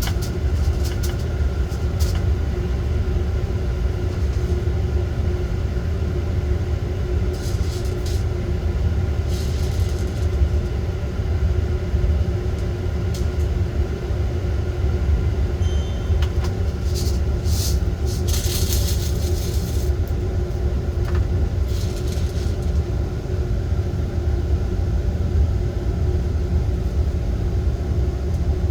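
Coffee roaster running with a steady low drone from its drum motor and fan, broken a few times by short spells of crackling or rattling.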